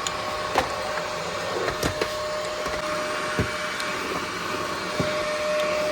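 Cordless stick vacuum cleaner with a high-speed brushless motor running steadily, a constant whine over the rush of suction air, with a few sharp clicks and knocks scattered through.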